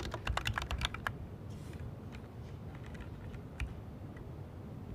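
Typing on a computer keyboard: a quick run of about ten keystrokes in the first second, then a few scattered key presses.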